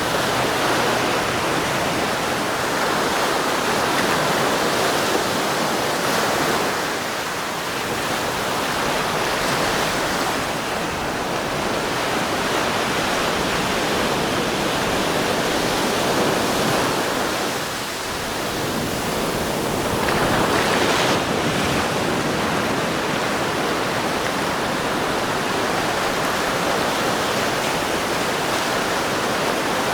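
Surf breaking and washing onto a sandy beach: a steady rush of waves that swells and eases every several seconds.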